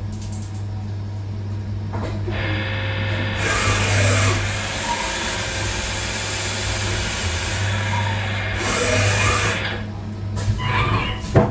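Haas ST20Y CNC lathe running: its axis servos whine, rising and falling as the tool turret moves out and back, over a steady machine hum. A loud hiss runs through the middle few seconds.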